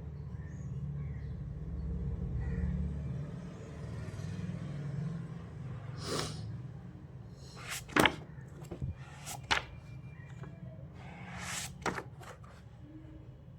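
A low steady hum that weakens after about three seconds, then a scattering of short sharp clicks and knocks, the loudest about eight seconds in.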